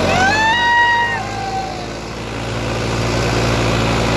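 Sonalika MM-35 tractor's diesel engine running steadily under load as it pulls a disc harrow through ploughed soil. In the first two seconds a high-pitched call rises and is held over the engine, then trails off.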